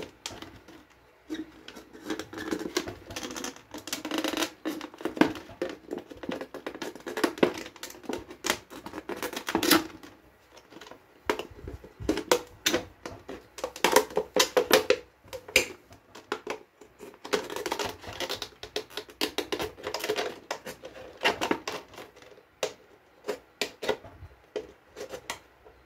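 Thin clear plastic bottle crackling and clicking as it is cut with a scalpel and flexed by hand. The crackles come in irregular bursts with short pauses.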